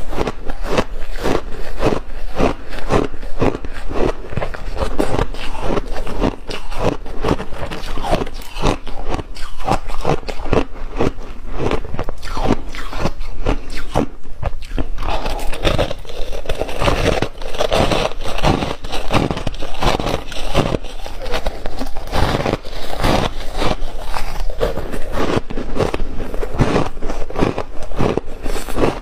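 Refrozen shaved ice being bitten and chewed close to the microphone: a rapid, continuous run of crisp crunches, thickening into denser grinding about halfway through.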